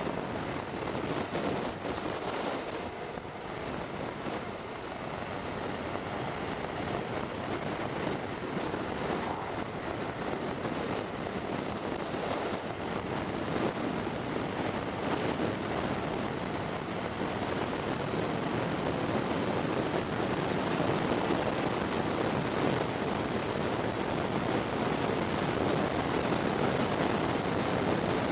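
Wind rushing over the microphone of a camera on a moving motorcycle, mixed with road and engine noise, growing gradually louder.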